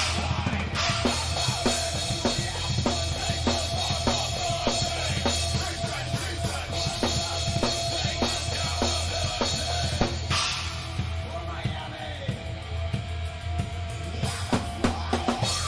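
Live rock band playing with a steady, driving drum-kit beat up front: kick drum, snare and cymbals over sustained bass and guitar. There are cymbal crashes about ten seconds in and again near the end.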